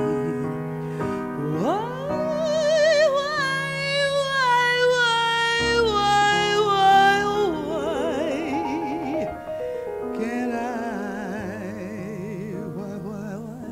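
Music: a solo singer with wide, operatic vibrato over sustained accompaniment chords. The voice swoops up about a second and a half in and holds long high notes, then settles lower and softer toward the end.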